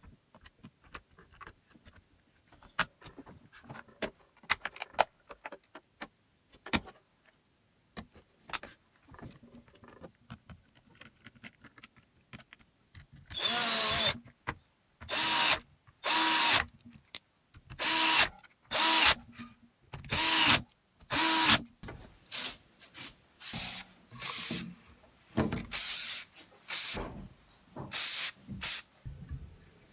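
Small clicks and knocks from handling the tool, then a Bosch GSR 12 VE-2 cordless drill's motor and gearbox running in about a dozen short trigger bursts in the second half.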